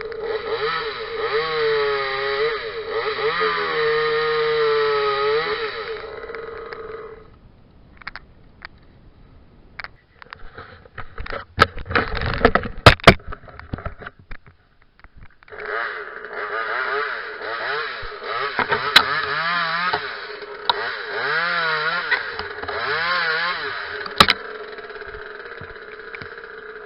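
Small two-stroke Parker top-handle chainsaw revving up and down repeatedly, then cutting out. After a stretch of clatter and several sharp knocks it runs again, revving in short bursts before settling to a lower, steadier speed near the end.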